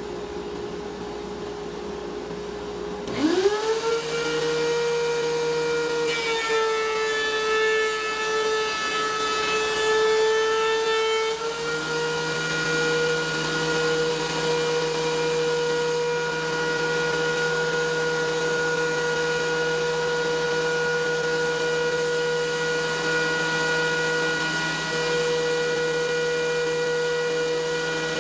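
DeWalt DW735 benchtop thickness planer's motor starting about three seconds in, rising in pitch to a steady whine, with a fuller, busier sound for a few seconds after that, over a steady machine hum.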